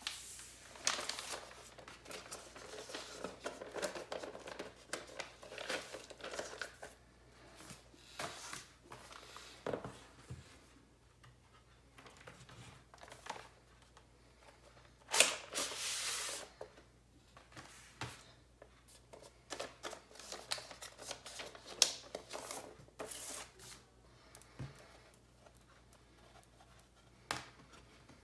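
Paper inner sleeves and a cardboard album jacket rustling and scraping as vinyl LPs are handled and slid in and out of their sleeves: a string of irregular brushing and sliding sounds, with a few sharper, louder swipes about halfway through and again about three quarters of the way in.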